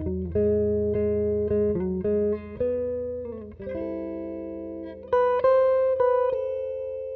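Clean-toned electric guitar playing an instrumental passage alone, plucking chords and single notes and letting them ring.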